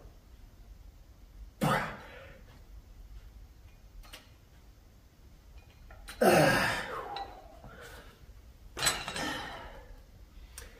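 A man's hard exhales and grunts during dumbbell front raises: three breathy efforts a few seconds apart, the loudest a strained groan falling in pitch about six seconds in. There is a faint knock near the end.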